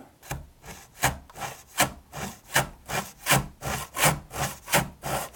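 Handmade dovetail back saw cutting across the top of a wooden trim molding by hand, in short, even push-and-pull strokes about three a second, faint at first and louder from about a second in.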